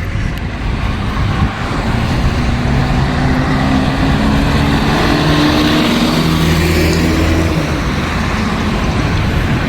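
Busy road traffic, with one vehicle's engine passing close and holding a steady note from about two seconds in until near the end.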